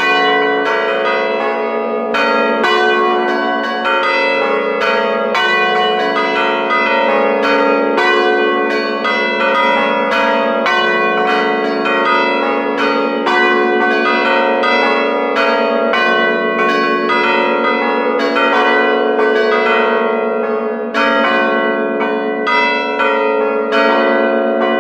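Bronze church bells of a five-bell ring, rung from a keyboard and heard close up from inside the bell chamber. Several bells swing and strike in quick, overlapping strokes, their tones ringing on into one another without a pause.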